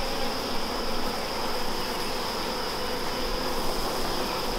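Honey bees buzzing steadily from an open, crowded hive.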